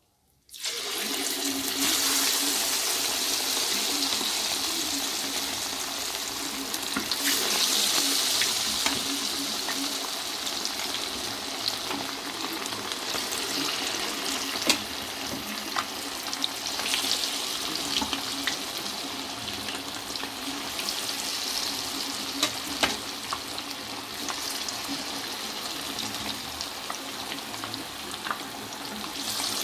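Marinated chicken kebab pieces deep-frying in hot oil: a steady loud sizzle with scattered sharp pops and crackles, swelling now and then. It starts suddenly about half a second in.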